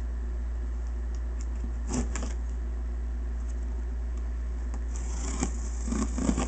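Packing tape on a cardboard box being slit open with a small hand-held tool: a short scrape about two seconds in, then a longer scraping stretch with crackling tape and a few clicks near the end, over a steady low hum.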